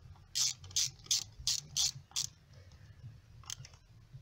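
Hand ratchet clicking as it is swung back while a plug screw on an outboard's lower unit is tightened: six sharp clicks at about two and a half a second, then two fainter ones near the end.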